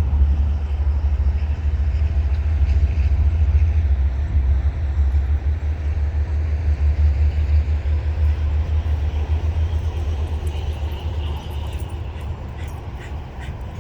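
Loud, steady low rumble that flickers rapidly and is strongest in the lows, fading slightly toward the end.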